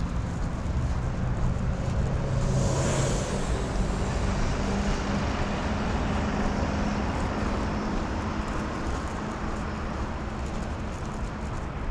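City street traffic: a steady hum of cars and engines passing, with a brief hiss about three seconds in.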